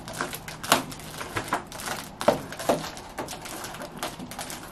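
Foil balloon crinkling and rustling as it is waved about, in irregular sharp crackles with a few louder ones.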